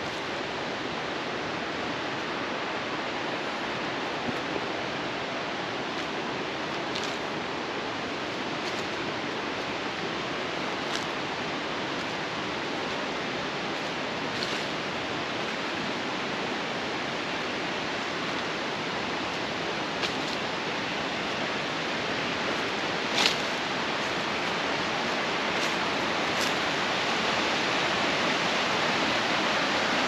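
Mountain stream rushing steadily, growing a little louder toward the end, with a few short clicks scattered through, the sharpest about two-thirds of the way in.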